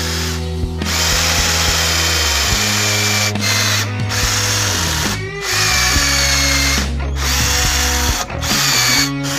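Electric power-tool motor running with a high whine, cutting out briefly several times, over background music.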